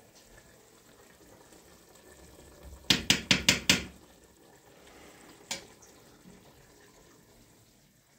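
Five sharp knocks or clatters in quick succession, about five a second, then a single one about two seconds later.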